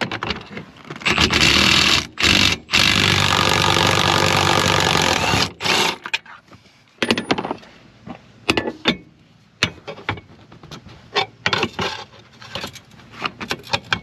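Milwaukee M12 cordless ratchet running for about four seconds, with two short stutters, backing out the 18 mm seatbelt anchor bolt. After it stops come scattered clicks and clanks of hand tools against the metal seat brackets.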